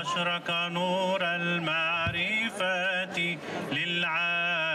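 Orthodox priest chanting a prayer, a wavering, ornamented melody sung over a steady held low drone.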